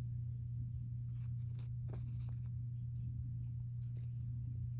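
A steady low hum with a few faint clicks of small Lego plastic pieces being handled and pressed together, about two seconds in.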